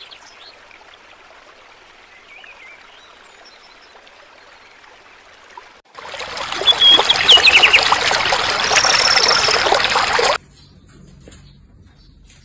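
Water trickling and splashing loudly for about four seconds from around six seconds in, with scattered clicks and a couple of high chirps over it. Before that there is only faint outdoor background with a few faint high chirps, and the rushing stops abruptly near the end.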